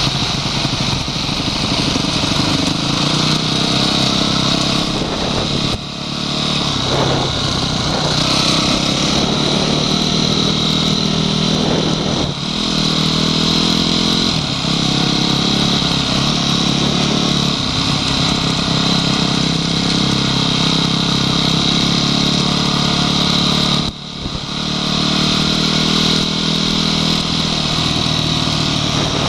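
Honda CRF250X enduro bike's single-cylinder four-stroke engine running under way, its revs rising and falling with the throttle. It briefly drops off a few times, most sharply about six seconds in and near the end, where the throttle is shut.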